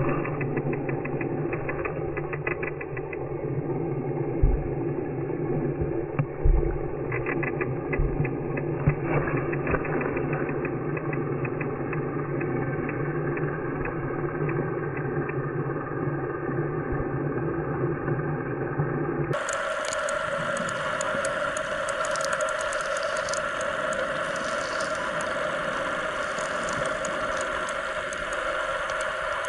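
A motor running steadily with a droning hum, with a couple of low thumps early on. About two-thirds of the way through, the sound changes abruptly to a higher-pitched steady hum.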